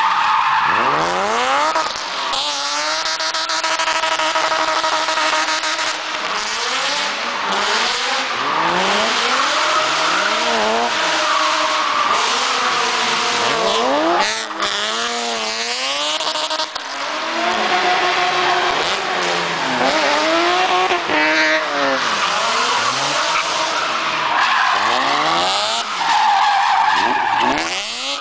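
BMW drift car's engine revving hard and falling back over and over as the throttle is worked through the slides, with its rear tyres squealing and skidding.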